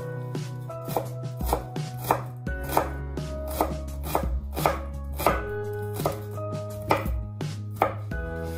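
Chef's knife chopping onion on a wooden cutting board: a steady run of knife strikes against the board, about two to three a second.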